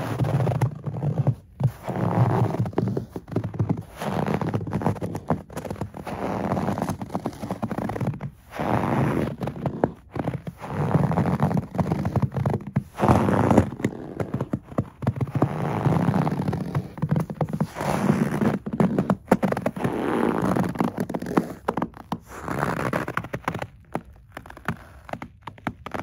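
Boots crunching on packed, crusty snow: slow, steady footsteps, one crunch about every second or so.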